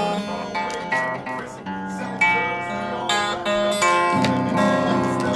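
Music: acoustic guitar strummed and picked, with repeated chord onsets.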